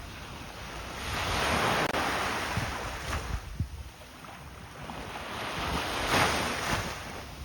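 Sea waves breaking on a shore, the surf swelling to a louder wash twice, about a second in and again about six seconds in, with wind on the microphone.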